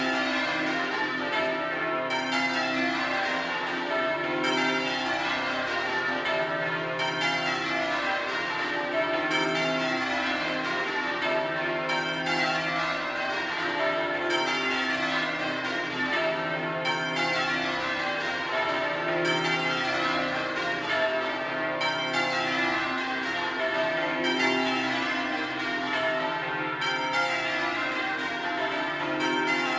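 The ring of twelve bells of St Mary-le-Bow, cast in 1956 by Mears and Stainbank with a 41 cwt tenor in C, being rung in change ringing. The strikes follow one another without a break, and each row of twelve comes round about every two and a half seconds over the lasting hum of the larger bells.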